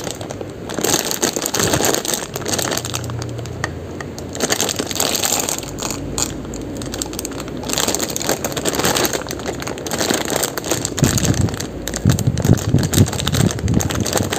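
Clear plastic packaging of a mini garden tool set crinkling and crackling as it is handled close to the microphone, with heavier handling bumps in the last few seconds.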